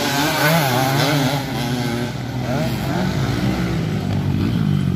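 Enduro motorcycle engines running and revving, their pitch rising and falling.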